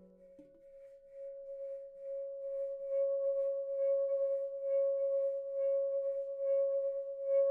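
Makai F# minor handpan, nitrided steel shell, rubbed so that it sings: one steady sustained ringing tone with its octave, swelling in about a second in, with a faint rhythmic pulsing from the rubbing above it.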